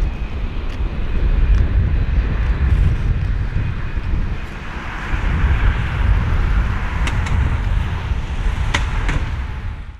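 Airbus A330-200's jet engines at takeoff thrust as it climbs away, heard as a low, uneven rumble with a steady rushing noise higher up. There are a few faint clicks near the end.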